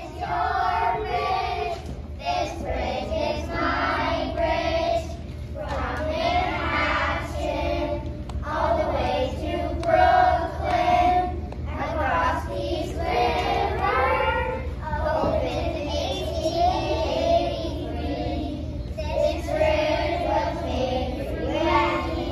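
A group of children singing a song together in unison, in phrases of a second or two.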